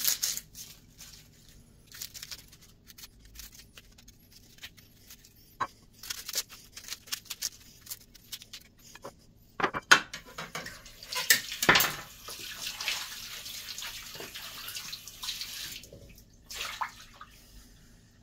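Knife scraping and dry onion skins crackling as onions are peeled by hand, with scattered small clicks. A couple of sharp clinks come about ten seconds in, then a steady hiss for about four seconds.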